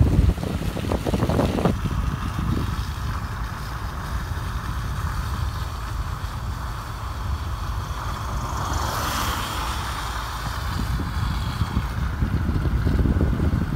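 Steady low rumble of road noise and wind buffeting the microphone from a moving car on a wet, icy street. About nine seconds in, an oncoming car's tyres swish past, a hiss that swells and fades.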